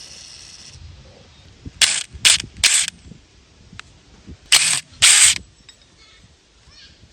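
Five short, harsh rasping bursts of tool work on the car: three in quick succession about two seconds in, then two more a little later.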